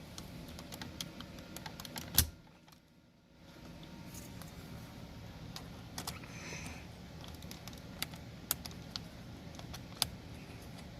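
Small plastic clicks and taps as climate control trim rings are pried off and pressed onto the dash knobs of a Toyota Tacoma, with one sharp snap about two seconds in. A steady low hum runs underneath.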